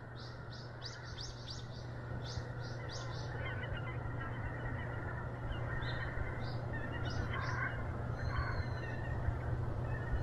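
Small birds chirping: a quick run of short high chirps for about the first three seconds, then a few scattered chirps, over a steady low hum.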